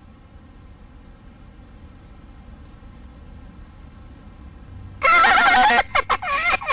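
Faint steady insect trilling for about five seconds. Then a loud warbling squawk and a rapid run of clucks, about six a second, from the electronic voice of a talking Chicken Little toy.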